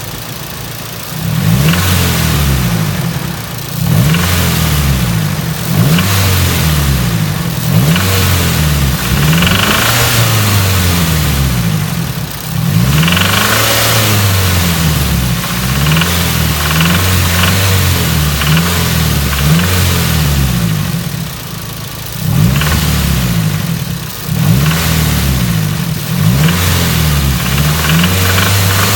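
Nissan 240SX engine being revved over and over, each rev rising and falling within a second or two, with a knock from a bad connecting rod bearing: rod knock.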